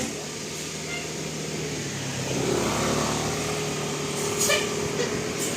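A motor vehicle engine running steadily with an even low hum over road noise. A brief sharp sound comes about four and a half seconds in.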